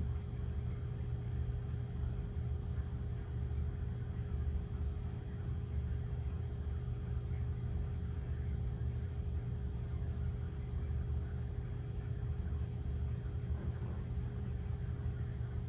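Steady low rumble with a faint, even hum running under it; no distinct events.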